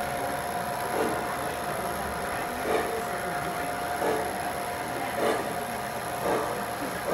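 Model trains running on a layout: a steady rolling rumble of wheels on track, with short louder pulses about once a second.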